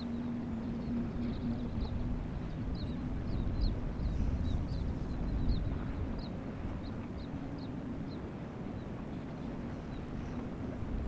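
Outdoor ambience: a low, steady rumble with a hum that fades out about halfway through, while a small bird chirps repeatedly in short high notes that stop about two-thirds of the way in.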